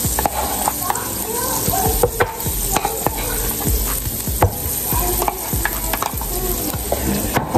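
Pancake batter being stirred briskly in a mixing bowl, the metal utensil clicking against the bowl in quick irregular strokes, over the steady sizzle of batter frying on a hot griddle.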